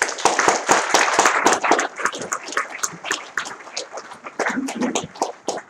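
Audience applauding: it starts suddenly, is loudest for the first two seconds, then thins to scattered claps near the end.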